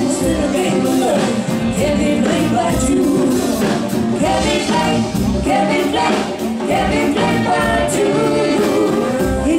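Live band playing an upbeat rock-pop song, with a woman singing lead over bass guitar, keyboard, drums and percussion.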